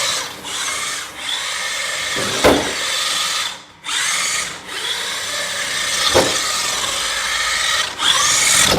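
Radio-controlled car's small electric motor and drivetrain whining steadily as it drives, dropping out briefly near the middle. Two sharp knocks come about two and a half and six seconds in.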